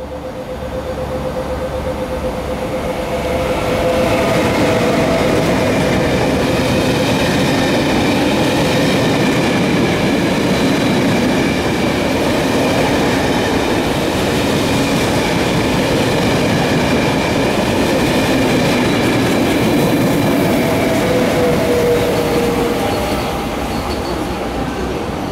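A locomotive-hauled passenger train with double-deck coaches passes close by at speed, hauled by a Lok 2000 (Re 460-type) electric locomotive. Its wheels make a steady loud rumble on the track, with steady high-pitched tones above the rumble. It turns somewhat quieter near the end.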